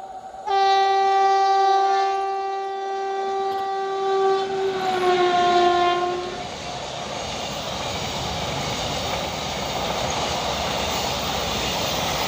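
WAG-7 electric locomotive's air horn sounding one long blast, starting about half a second in and dropping slightly in pitch near the end as the locomotive passes. Then a long container freight train rolling by with a steady rumble and clatter of wheels on the rails.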